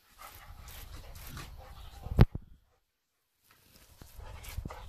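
Young Rottweiler panting and whimpering as it snaps at water from a garden hose, over a hissing noise. A single loud knock comes about two seconds in, then the sound cuts out for about a second before the noise returns.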